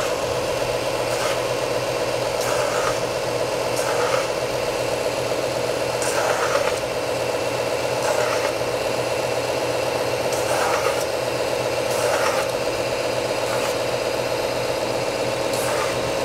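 Benchtop belt sander running steadily with a 150-grit belt, with a short rasping grind about every second and a half as the corners of a wooden sanding block are pressed to the belt and rounded over.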